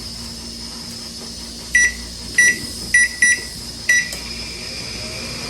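Samsung microwave's keypad beeping five times as its buttons are pressed, over a steady low hum. The fan runs without the earlier noise now that its bushings are greased.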